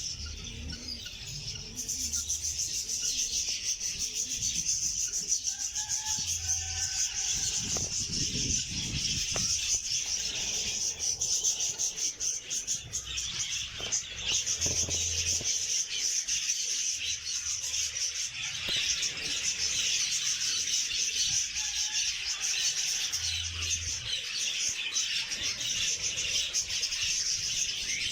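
Many small birds chirping together in a dense, continuous high-pitched chatter that grows louder about two seconds in, with a few dull thuds underneath.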